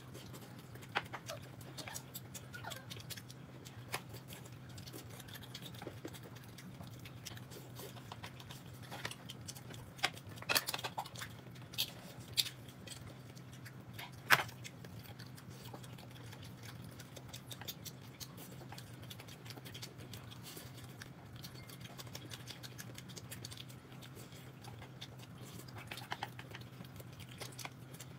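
People eating: chewing with scattered clicks and knocks of chopsticks and tableware, the loudest cluster of sharp clinks between about 10 and 15 seconds in, over a steady low hum.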